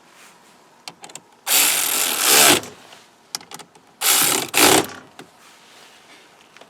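Ratchet with a 12 mm socket tightening the nuts on the positive battery terminal: two spells of ratcheting about a second each, with a few light clicks of the tool and socket between.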